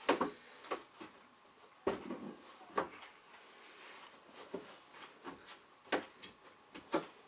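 Irregular knocks and clacks as the panels and parts of a multi-game table are worked and pressed into place by hand, about eight sharp hits spread unevenly.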